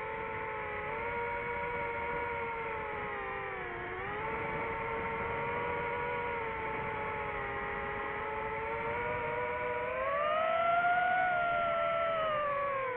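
DJI FPV drone's motors and propellers whining steadily. The pitch dips about four seconds in, then rises and falls again near the end as the throttle changes.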